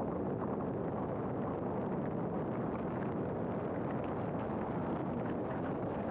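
Steady road and wind noise of a car driving at an even pace.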